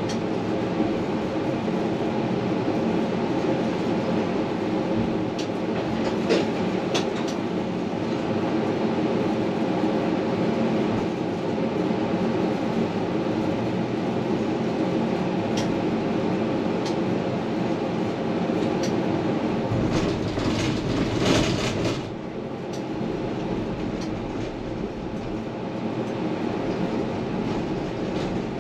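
Tram running on its rails, heard from inside the front of the car, with a steady hum as it pulls away from a stop and rolls along the track. Scattered sharp clicks come over the running noise, with a louder stretch of clicking around twenty seconds in, after which it runs a little quieter.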